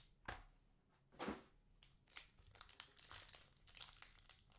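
Foil trading-card pack wrapper crinkling and being torn open by hand, faint, with a sharp click early on and a louder rustle a little over a second in.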